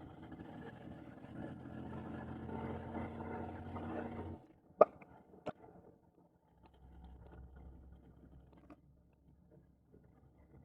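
Truck engine running steadily, then cutting off suddenly about four seconds in. Two sharp clicks follow, the first the loudest, then a faint low hum.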